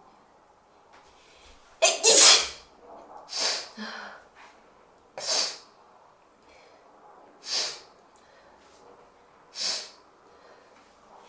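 A person sneezing: one loud sneeze about two seconds in, then several shorter, quieter noisy bursts of breath about two seconds apart.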